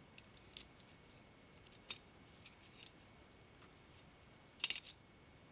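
Light metallic clicks and ticks of a brass rod being worked through the knuckles of a sheet-brass barrel hinge, test-fitting it for rough spots. A few single clicks come first, then a quick cluster of louder clicks near the end.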